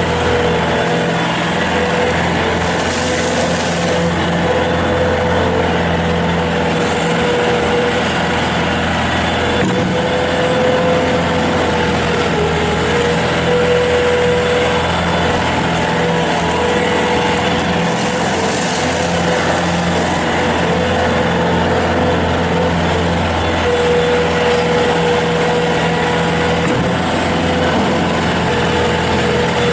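Kubota turbo diesel engine of a 2009 Bobcat S220 skid steer loader running at an even speed, with a steady whine over the engine note.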